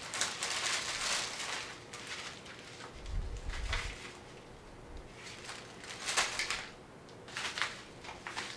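Rustling and handling noises of packaging and items being moved about, in several short spells, with a low bump about three seconds in.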